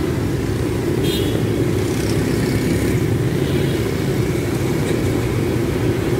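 Pressurized kerosene burner, fed from a converted gas bottle, burning with a steady low rush under a wide wok of frying oil.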